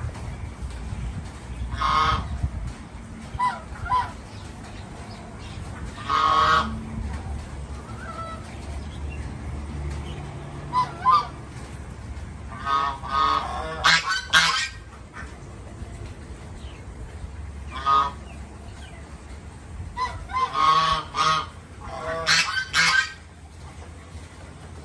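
Chinese geese honking: short separate calls, with quick runs of honks about halfway and again near the end.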